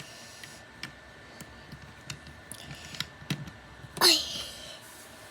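Plastic Lego bricks clicking and tapping as they are handled and pressed onto the build: a few light, scattered clicks. About four seconds in, a short vocal sound from the builder is the loudest thing.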